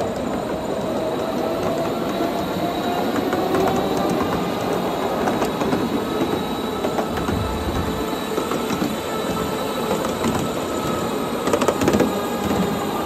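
Ride-on miniature train running along an elevated trestle track: steel wheels rumbling and clicking over the rail joints, with a whine from the Plum Cove electric locomotive that rises slowly in pitch. A cluster of louder clicks comes near the end.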